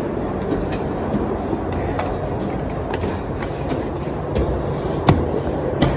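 Steady road noise inside a moving car, a continuous rumble and hiss with a few sharp knocks.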